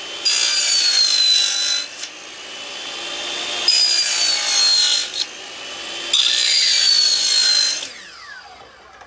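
Mitre saw blade cutting through a laminate floorboard three times, each cut about a second and a half, with the blade's whine dropping in pitch as it bites. Between cuts the saw runs freely, and near the end it winds down.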